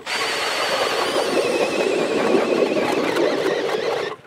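StrikeMaster ice auger driven by a Makita cordless drill, boring through lake ice: steady grinding of the bit in the ice with a high whine from the drill that wavers in pitch. It stops suddenly about four seconds in.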